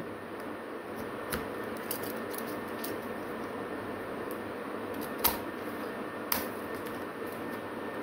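Utility knife cutting around an amber plastic medicine-tonic bottle: steady scraping of the blade on the plastic with a few sharp clicks, the two loudest about five and six seconds in.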